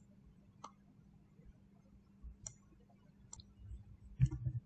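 Computer mouse clicking: a few single clicks spread out about a second apart, then a quick cluster of clicks near the end, over a faint steady hum.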